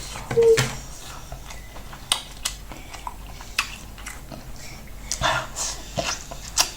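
Close-up eating sounds of a person eating corn starch fufu with light soup: wet chewing and lip smacks, heard as scattered short clicks, with a denser cluster about five seconds in.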